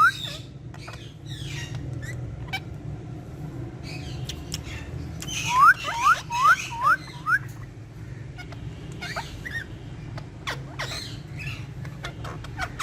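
Pet parrots calling: a run of five quick rising whistles about halfway through, with scattered clicks and soft squeaky chatter around it.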